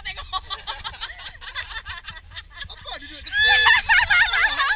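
People laughing and chattering in a group; about three seconds in, loud high-pitched shrieking laughter breaks out and lasts over a second.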